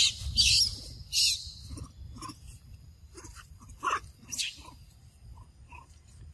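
Young macaques giving scattered short squeaks and chirps, with a few brief, louder bursts of noise in the first second and a half.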